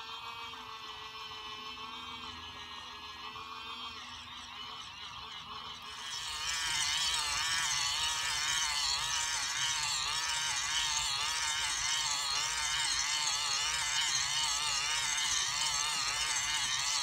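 Small electric motor of a toy mini washing machine running, spinning a makeup sponge in soapy water. Its whine wavers in pitch and gets louder at about six seconds.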